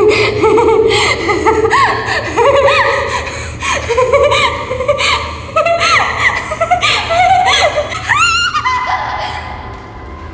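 A woman laughing loudly in repeated bursts, the laughs climbing into high-pitched squeals about eight seconds in and then dying away, over a steady low hum.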